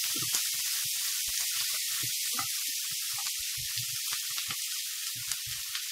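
Chopped onion sizzling steadily in olive oil in a non-stick frying pan as it browns, with a spatula scraping and knocking against the pan in quick, irregular stirring strokes.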